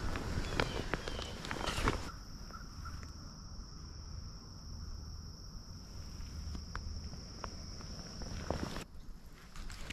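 A hooked smallmouth bass splashing at the surface as it is brought in, with sharp handling clicks. About two seconds in the splashing stops and a steady high insect trill carries on, breaking off sharply near the end.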